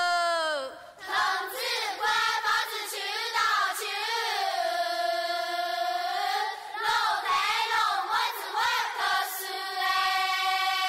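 A group of women singing together in Hakka, with long held notes; the first one slides down and breaks off about half a second in.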